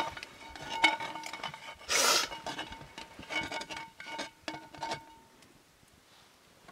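A metal spoon clinking and scraping against metal serving bowls while food is dished out. Each tap leaves a short ringing tone. There is a string of clinks over the first five seconds, with a louder scrape about two seconds in.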